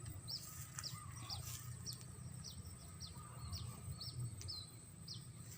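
A bird calling repeatedly with short, high chirps that fall in pitch, about two a second, faint over a low steady background rumble.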